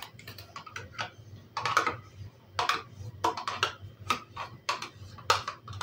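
Spatula scraping fromage blanc out of a small plastic pot into a bowl: an irregular run of short clicks and scrapes as the spatula works the pot.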